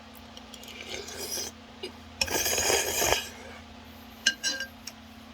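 A person slurping spicy mala ramen noodles: a short noisy slurp about a second in, then a longer, louder one, followed by a few short clicks near the end.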